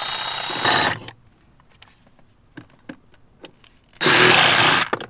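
A power tool cutting away plastic pieces of a switch panel so it will fit. It runs in two bursts of about a second each, one at the start and one about four seconds in.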